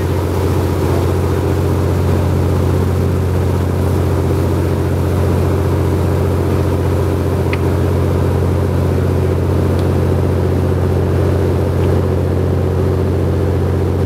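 Boat engine running steadily under way, a deep even hum, over the rush of the wake.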